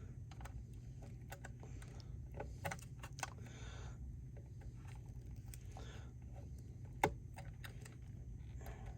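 Scattered small metallic clicks and taps of a wire and hand tools being worked into a terminal strip on a power-supply chassis, with one sharper click about seven seconds in, over a low steady hum.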